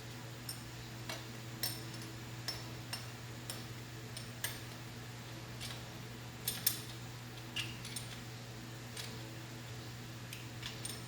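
Irregular light metallic clicks and clinks from hand tools and hardware being worked on an engine, roughly one a second with the sharpest pair about two-thirds of the way through, over a steady low hum.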